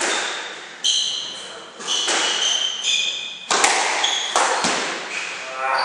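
Squash rally: the ball cracks sharply off rackets and the court walls at irregular intervals, with high-pitched shoe squeaks on the wooden floor between the hits.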